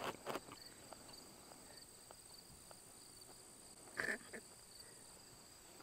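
Faint, steady insect chirping from the grass: a quick pulsing high trill with a thinner, higher steady note over it. A brief, slightly louder sound comes about four seconds in.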